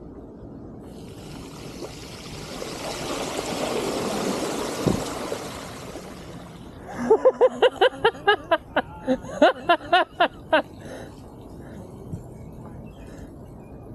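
Bicycle tyres splashing through floodwater, a rushing wash that swells and fades over a few seconds. Then a rapid run of about a dozen short, loud, pitched cries, about four a second.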